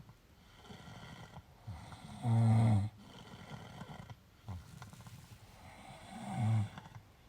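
Snoring in deep sleep: two long, low snores about four seconds apart, the first the louder, with quieter breathing between them.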